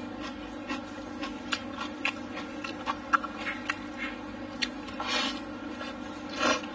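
Close-up eating sounds: wet chewing and the clicks of chopsticks against a bowl, with two slurps of greens sucked into the mouth, about five seconds in and near the end, over a steady hum.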